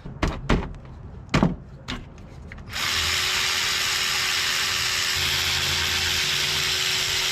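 A few knocks of tools being handled, then a cordless power drill/driver runs steadily for about five seconds, with an even whirring hiss and a steady hum, while taking apart the Jeep Gladiator's front brake to reach the pads.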